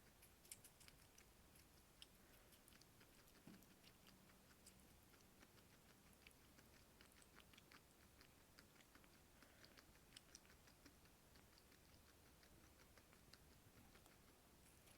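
Guinea pig chewing food: faint, irregular small crunching clicks.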